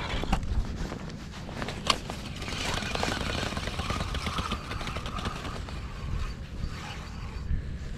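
Wind rumbling on the microphone, with a few sharp clicks and a stretch of rustling handling noise in the middle.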